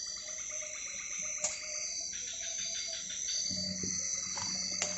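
Night chorus of tropical forest insects: crickets and other insects holding steady high trills with a faster pulsing trill beneath. A low steady hum joins a little past the middle, and there are a couple of faint clicks.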